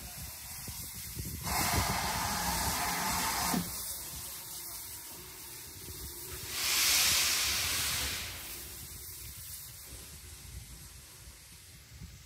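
GWR 5600 Class 0-6-2T tank locomotive letting off steam: two long hisses, the first about a second and a half in lasting two seconds, the second, louder and higher, about six and a half seconds in.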